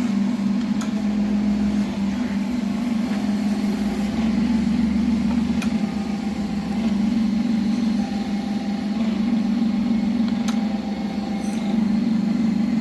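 Machining setup with a hydraulic clamping fixture running: a steady, loud low hum, with a few faint ticks. The sound cuts off suddenly at the end.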